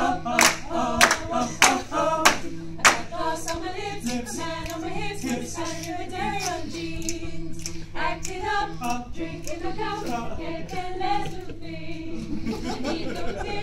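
A small group of men and women singing a cappella in harmony, with rhythmic hand claps keeping time for the first few seconds that then stop while the singing goes on.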